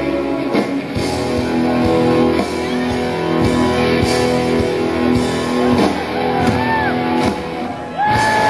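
Live rock band playing loudly through a large PA: electric guitars holding chords over drum hits. The music dips briefly near the end, then swells again with gliding high notes that level off into a held tone.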